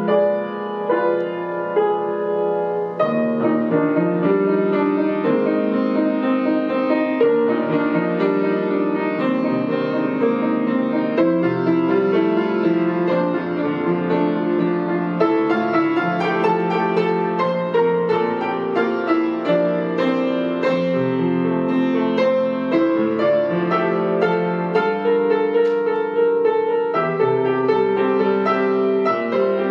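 Background piano music, a slow flowing piece of sustained, overlapping notes.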